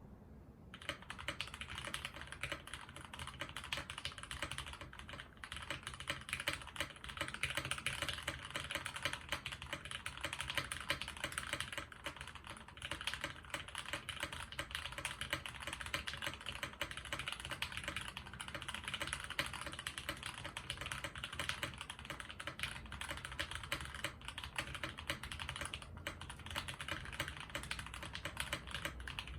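Rama M60-A mechanical keyboard being typed on continuously: lubed Cherry-topped Gateron Ink linear switches bottoming out on an integrated aluminium plate under GMK keycaps, a dense, steady stream of keystrokes with a couple of brief pauses.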